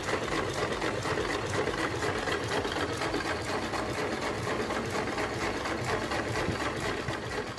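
Homemade single-cylinder spark-ignition petrol engine running at a steady speed with a fast, even mechanical clatter. Its cylinder is made from a jeep wheel cylinder and drives a heavy flywheel.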